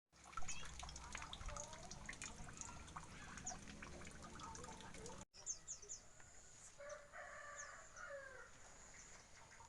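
Small birds chirping repeatedly in high, short notes. A rooster crows once, about seven seconds in.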